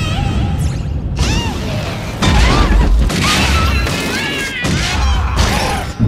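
Dense layered cartoon sound effects: a heavy low rumble with crashes and thuds, overlaid with many short high squeaky cries that rise and fall in pitch. It gets louder suddenly a little after two seconds in.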